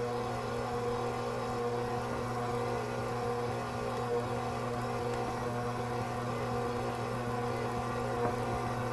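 Smeg 5-quart, 600-watt tilt-head stand mixer running at a steady speed, its motor giving an even hum as the beater turns through cookie dough.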